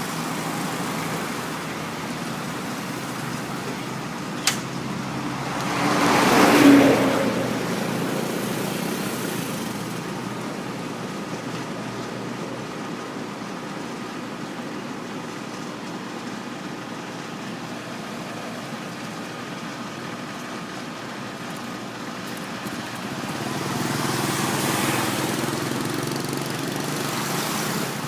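Motor vehicle engine running steadily. A single sharp click comes about four and a half seconds in, then a swell of louder engine and road noise about six to seven seconds in, and another broad swell near the end.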